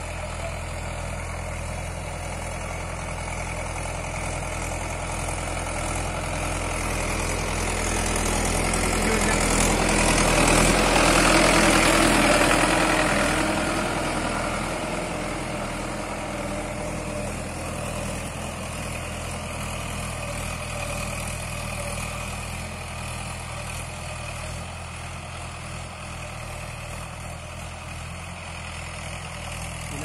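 Tractor diesel engine running steadily while pulling a tined cultivator through the soil. It grows louder as the tractor comes close, loudest about ten to thirteen seconds in, then fades as it moves away.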